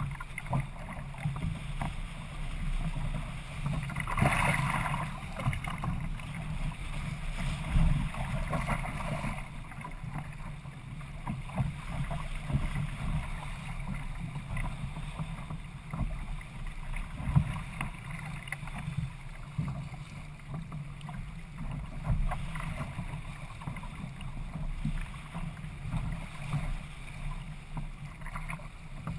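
Water rushing and slapping against the hull of a Hobie Adventure sailing kayak as it runs through choppy water in a strong breeze, with steady wind rumble on the microphone. A louder rush of water comes about four seconds in.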